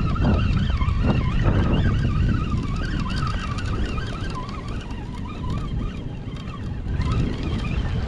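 Spinning fishing reel being cranked steadily under load, its gears giving a whine that wavers in pitch with the turning of the handle, over a low rumble of wind on the microphone.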